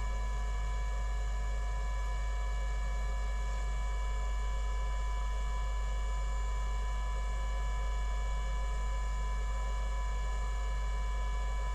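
Steady electrical mains hum: a low buzz with several constant higher tones above it, unchanging throughout.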